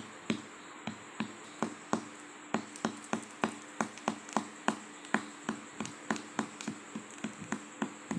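Quick, uneven series of light taps, about three to four a second, over a faint steady hum.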